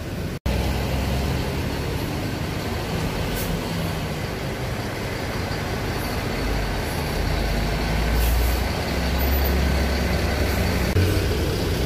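Mercedes-Benz coach's diesel engine idling close by, ready to pull away, its low rumble growing louder in the second half.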